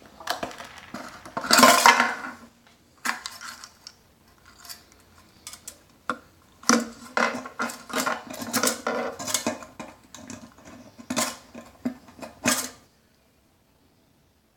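Fuel cap unscrewed from the steel tank of a Duromax 16 hp gas engine and its metal chain clinking against the tank, then the fuel strainer worked out of the filler neck. It is an irregular run of scrapes, clicks and clinks, loudest in a rub near the start, and it cuts off suddenly near the end.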